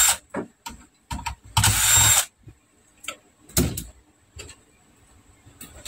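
Cordless drill-driver spinning screws out of a monitor's sheet-metal chassis in short bursts, the longest about half a second, with small clicks and taps of handling between them.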